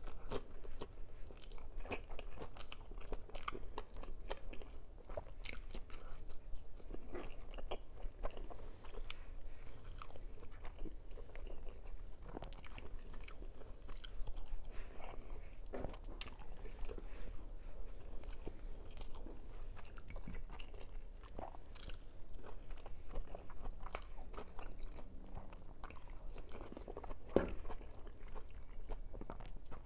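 Close-miked chewing and biting of fried sausage, with many small irregular clicks and crackles of the mouth through the whole stretch.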